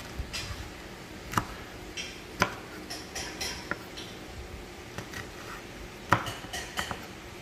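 Chef's knife chopping sweet peppers on a wooden cutting board: irregular sharp knocks of the blade striking the board, the loudest about six seconds in.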